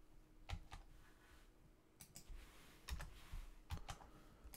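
Faint, irregular clicking at a computer, about ten short clicks in small clusters, as the display is switched to another page.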